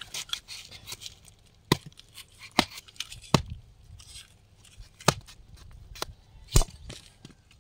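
Sharp chopping strikes as tender palm fruit (nungu, ice apple) is cut: five loud ones at uneven intervals, with lighter clicks and scraping in between.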